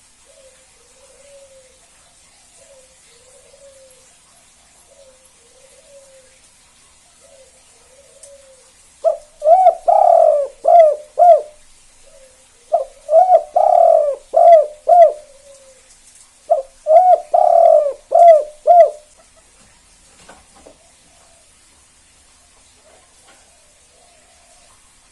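Spotted dove (tekukur) cooing: soft, faint coos repeat for the first eight seconds or so, then three loud song phrases of four or five coos each follow from about nine seconds in, the last ending around nineteen seconds in.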